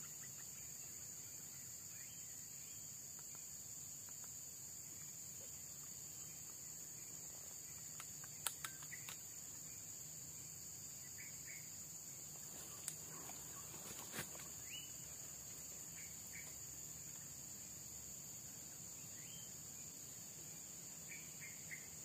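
Faint, steady high-pitched drone of insects, with a few short bird chirps here and there and several small sharp clicks.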